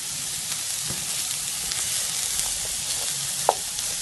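Chicken, garlic and carrot sautéing in a pan with a steady sizzle, with a single short tap about three and a half seconds in.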